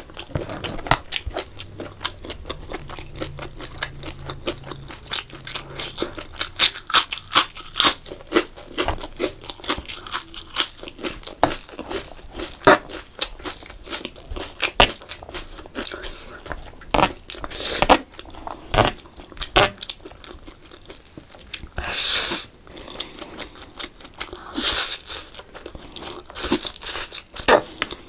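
A person chewing and biting crunchy fried food: irregular sharp crunches, with louder bursts of biting every few seconds.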